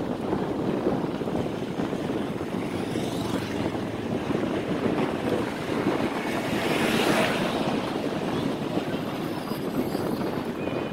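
Steady wind rushing over the microphone of a camera on a moving bicycle, with the surf washing under it. It swells brighter and hissier about seven seconds in.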